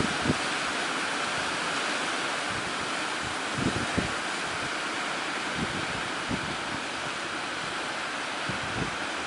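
Steady rush of sea waves breaking, with wind buffeting the microphone in a few short low thumps.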